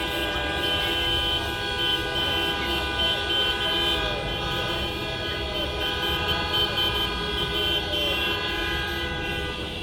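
Many horns honking together in a long, steady chorus of overlapping pitches, with one higher horn beeping in quick repeated toots.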